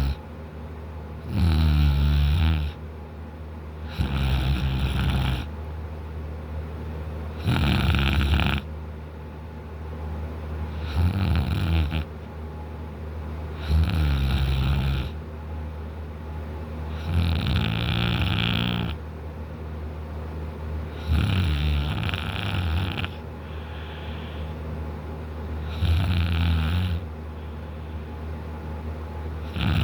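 A man snoring loudly in deep sleep: a loud, fluttering snore about every three to four seconds, each lasting about a second, with quieter breathing between.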